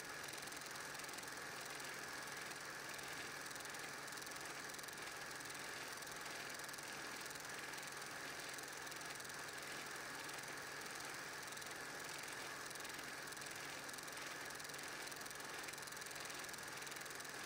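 Steady mechanical running noise with hiss and a faint hum, typical of an 8mm film projector running while silent home-movie reels are transferred.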